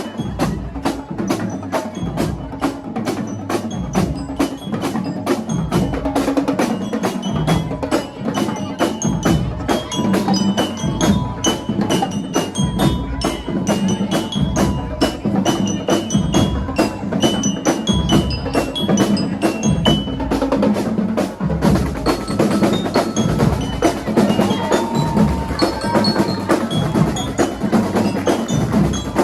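Marching band playing: a drum section beats a steady march rhythm under a bright melody on mallet bells such as bell lyres. About two-thirds of the way through, the high bell line stops and the tune carries on lower.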